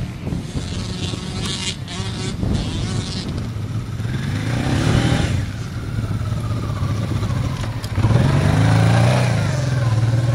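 Large adventure motorcycle riding on loose sand, its engine running steadily and revving up twice, once about halfway through and again near the end.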